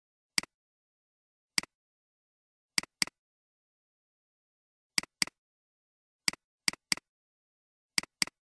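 Computer mouse clicks: about eleven short, sharp clicks, several in quick pairs like double-clicks, with dead silence between them.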